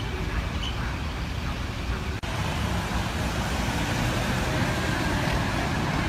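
Steady outdoor background rumble, heaviest in the low end, with a brief dropout about two seconds in.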